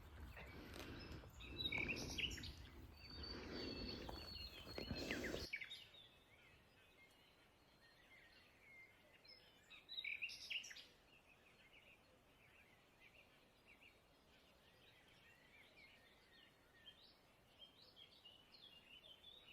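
Small birds chirping and singing in woodland. For the first five seconds or so a louder low noise lies under the calls and stops abruptly, and there is a short louder burst of calls about ten seconds in.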